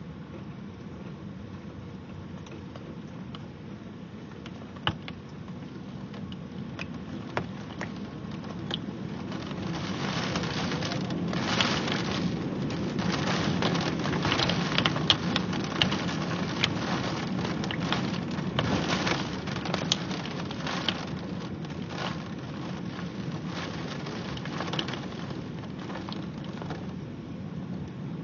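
Heavy rain striking a surface, with many sharp individual drop hits. It grows heavier about a third of the way in and eases off near the end.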